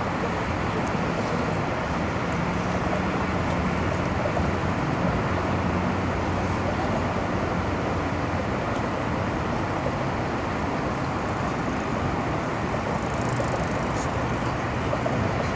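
Steady engine drone of a river cruise boat heard on board, a low hum under an even rush of water and wind.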